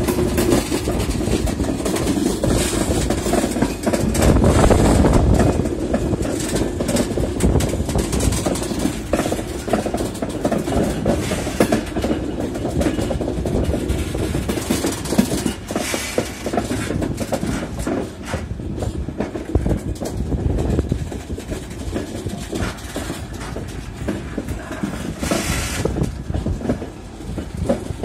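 JNA box wagons of a freight train rolling past on the rails, their wheels clicking and clanking over the rail joints over a steady rumble, growing gradually quieter.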